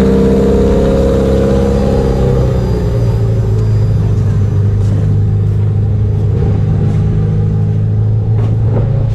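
Full-size demolition derby car's engine running up high just after it revs, then settling to a steady lower idle about two to three seconds in.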